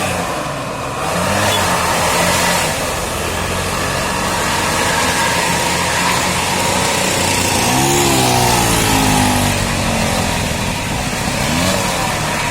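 Large vehicle engines running in road traffic, with an engine note that rises and falls about eight seconds in and again briefly near the end.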